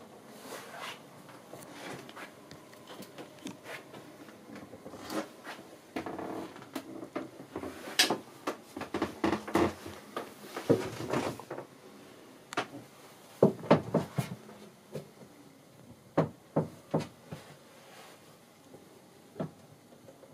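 Irregular knocks, clicks and rustles from someone moving about a yacht's small wooden cabin, busiest around the middle, with a run of sharp knocks about two-thirds of the way through.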